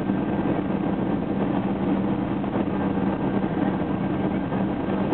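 Steady cabin noise of a jet airliner descending to land: an even drone of engines and rushing air, with a constant low hum, heard from inside the cabin.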